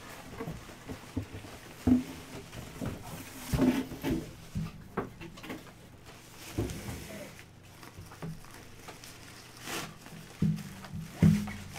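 Handling noise from a fabric drawstring bag being gripped and pulled open, with the plastic wrapping inside rustling. There are scattered bumps and rustles at uneven intervals.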